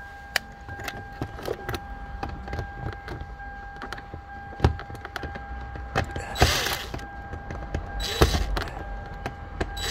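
Hand work on a car's door interior trim, taking out a screw and a small plastic panel: scattered small clicks and knocks, with two brief scraping rustles about six and eight seconds in. A faint steady tone sits underneath.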